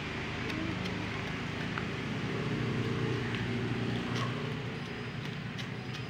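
Steady low engine drone with a few faint scattered clicks.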